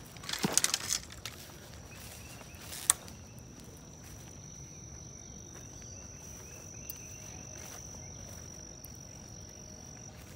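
A steady, high-pitched insect trill, such as a cricket's, runs throughout over outdoor background noise. Near the start there is a brief loud rustle of the phone being moved through grass and leaves, and about three seconds in a single sharp click.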